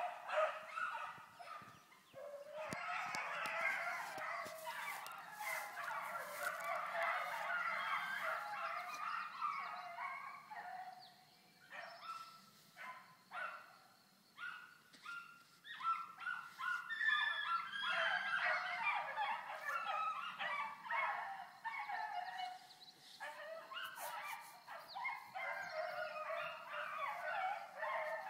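Pack of hounds baying in full cry as they run a rabbit's trail, many voices overlapping. A little before halfway the chorus thins to a few separate bays for several seconds, then the pack picks up again.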